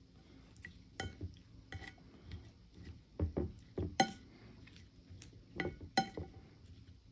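A spoon clinking and scraping against ceramic dishes as leftover gochujang sauce is scraped onto a plate: about half a dozen sharp clinks with a short ring, the loudest about four seconds in, with softer scrapes and taps between.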